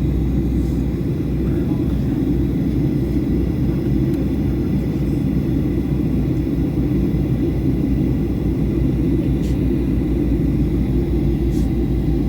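Steady cabin noise of a Boeing 737-800 in descent: a low, even rumble of engines and airflow, with a faint steady high tone above it.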